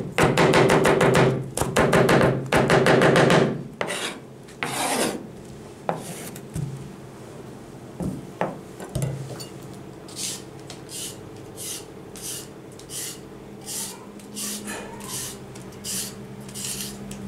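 Chef's knife chopping fast on a plastic cutting board, finely shredding cabbage in a rapid run of strokes for the first three or four seconds, then a few single knocks. From about ten seconds in, rasping scrapes about twice a second as the skin is scraped off a white root vegetable.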